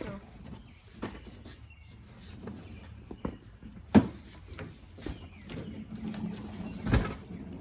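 Cardboard boxes and packed goods being handled: scattered knocks and rustling, with a sharp knock about four seconds in and a heavier thump near the end.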